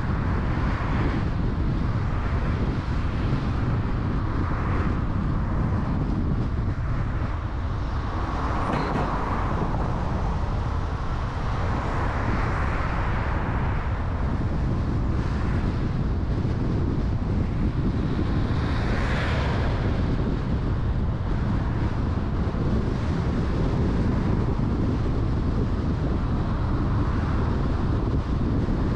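Street traffic passing, with a steady low rumble of wind on the microphone; several vehicles swell by one after another, the loudest about nineteen seconds in.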